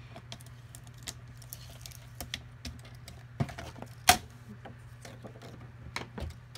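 Fiskars sliding paper trimmer worked by hand: its cutting carriage slides along the rail through a laminated sheet with scattered light plastic clicks and ticks. One sharper, louder click comes about four seconds in as the sheet is lifted off the trimmer.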